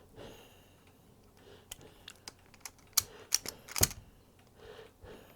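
Kaiweets wire stripper handled and worked: a run of light, irregular clicks, with the sharpest snap about four seconds in.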